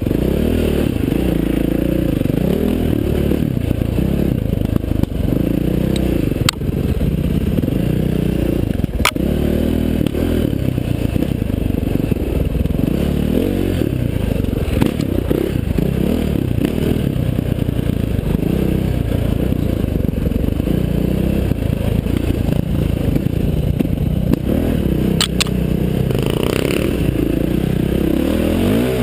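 KTM 530 XC-W dirt bike's single-cylinder four-stroke engine running under load, its revs rising and falling over and over as the throttle is worked. A few sharp knocks cut through it.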